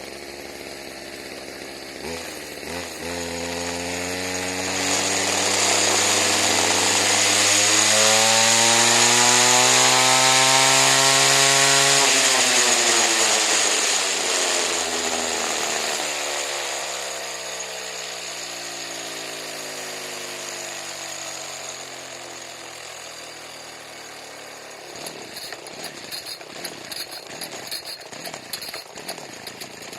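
A low-compression weed eater's two-stroke engine running: the revs climb slowly for several seconds, hold high, then wind back down to a steady idle, and near the end the running turns rough and uneven.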